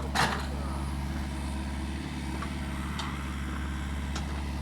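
Mini excavator's diesel engine running steadily under load, with one sharp knock about a quarter second in and a few faint ticks later.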